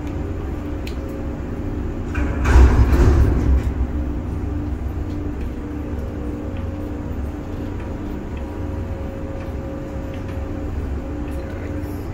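Cargo crane machinery running with a steady low rumble, with a louder rushing surge about two seconds in that dies away over the next two seconds.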